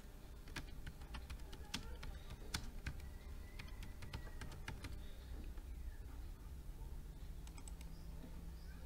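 Faint typing on a computer keyboard: a quick run of key clicks through the first half, then a few scattered faint clicks near the end.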